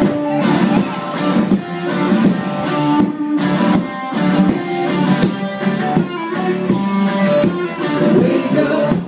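Live country band playing an instrumental passage led by electric guitar over a steady beat.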